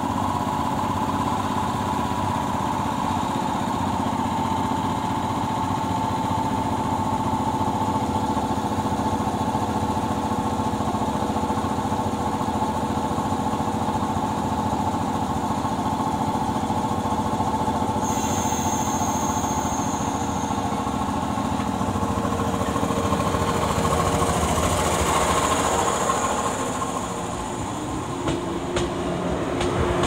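JR West 115 series electric train standing at a platform, its under-floor equipment running with a steady hum and a steady whine. Near the end the train starts to pull away and a new motor tone comes in.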